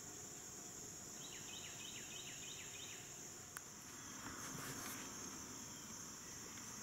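Steady high-pitched drone of insects in the woods, with a quick run of six falling chirps about a second in, a single click, and a brief rustle around the middle.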